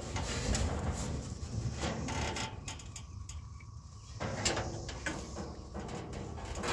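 Steel exhaust pipe being worked loose under a pickup after being cut: irregular metal scraping and knocking, with a sharp knock about four seconds in.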